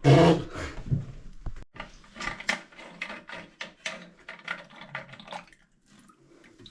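Handwork on a toilet cistern's fill valve: a loud knock at the start, then a run of small clicks and knocks from grips and plastic parts, with water dripping and splashing in the cistern, dying away near the end.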